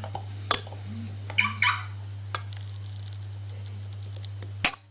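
Small sharp metallic clicks from a lock cylinder and key being worked by hand, spaced apart, the loudest near the end, over a steady low electrical hum. A brief high-pitched cry, like a cat's, comes about a second and a half in.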